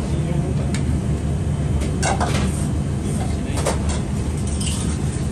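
Ramen stall kitchen: a few clinks and clatters of bowls and utensils being handled, over a steady low rumble.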